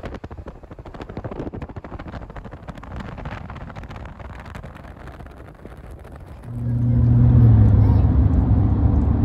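Car driving on the highway: uneven road and wind noise. About six and a half seconds in, a much louder steady low hum comes in and holds.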